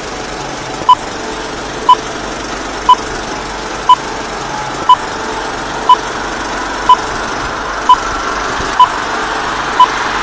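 Film-leader countdown beeps: a short, high beep once a second, over a steady static hiss that slowly grows louder.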